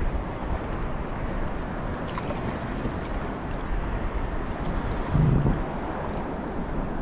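Wind buffeting the microphone over choppy sea water lapping against a kayak's hull, with one brief louder low thump a little after five seconds in.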